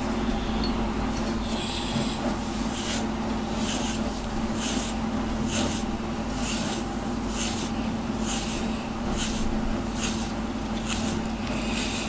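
A hand rubbing a cat's fur in repeated strokes: a soft brushing hiss about once a second, starting a few seconds in and going on steadily, over a steady low hum.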